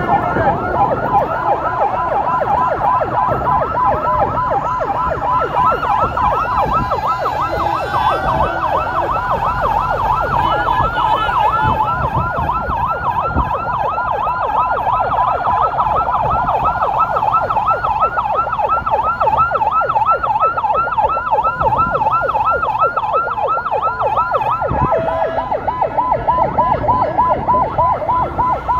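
Several vehicle sirens sounding at once in a fast yelp, overlapping sweeps of pitch repeating about four or five times a second, over the rumble of convoy traffic.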